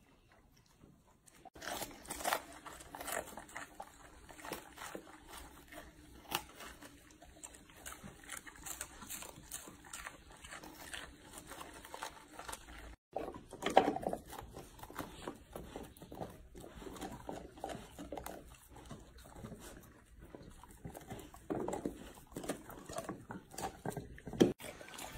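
Golden retrievers chewing and crunching food: irregular wet crunches and smacks as they bite into strawberries and then cabbage leaves. The sound starts about a second and a half in and drops out briefly about halfway, where one clip cuts to the next.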